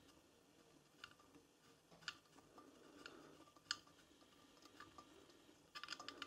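Faint, sparse metallic clicks of small bolts being lifted out of a motorcycle engine's cylinder-head cover by hand, a few single ticks about a second apart, then a quick cluster of clicks near the end.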